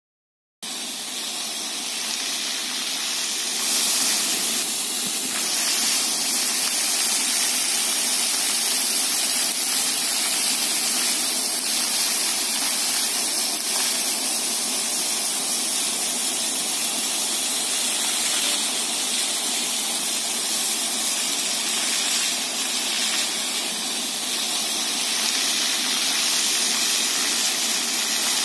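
Water jets of a pavement-level fountain splashing onto wet paving stones: a steady hiss of falling water that starts about half a second in.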